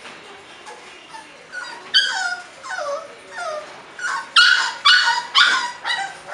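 Bulldog puppies yipping and whimpering as they play: a string of short, high yelps that each fall in pitch, coming louder and closer together from about four seconds in.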